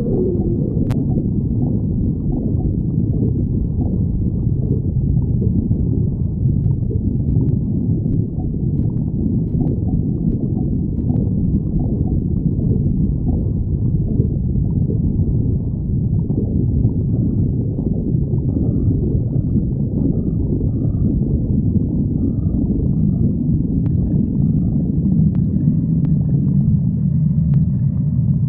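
Human stomach growling: a continuous low rumbling and gurgling with no pauses.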